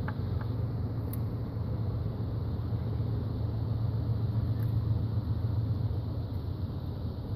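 Steady low rumble, with a few faint clicks in the first second of a metal pick working at the old torque converter oil seal in the transmission housing.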